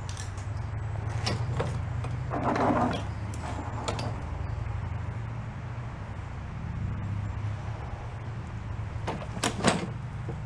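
Handling noises as a push lawn mower is tipped onto its side over a drain pan to let excess oil out: a louder clatter a couple of seconds in, scattered knocks and clicks, and a pair of sharp knocks near the end, over a steady low hum.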